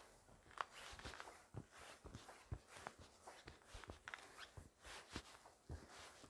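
Faint footsteps walking on an icy, snow-edged path, about two steps a second.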